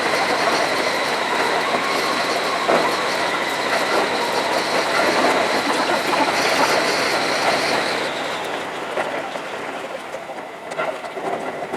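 Seibu Railway electric train running on the rails, its wheel and track noise carrying a steady high-pitched whine; the sound dies down after about eight seconds.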